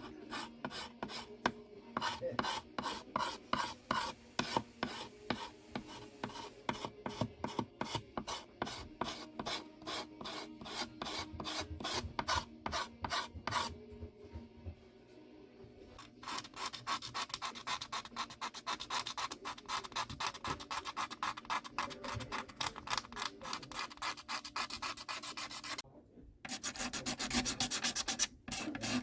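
Abrasive hand tool rubbed back and forth over wood in steady rasping strokes, about three a second at first, then faster and denser from about halfway in, with two short breaks near the end.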